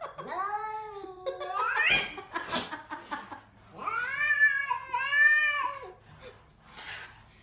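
A cat yowling: two long, drawn-out calls, the first ending in a rising glide, the second about two seconds later.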